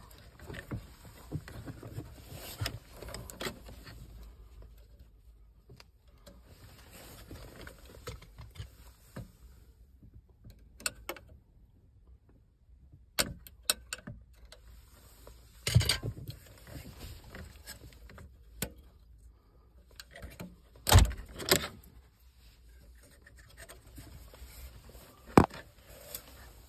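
Rustling and handling noise from car-stereo wiring and plastic connectors being worked behind the radio slot, with a quiet spell in the middle and several sharp clicks and knocks, the loudest a little past two-thirds of the way through.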